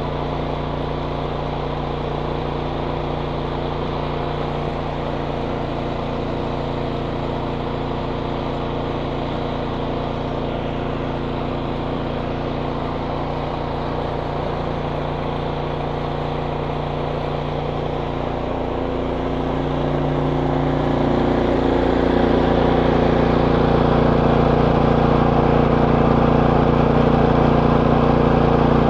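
An engine running steadily. About twenty seconds in, it gets louder and its note changes, then holds steady at the new level.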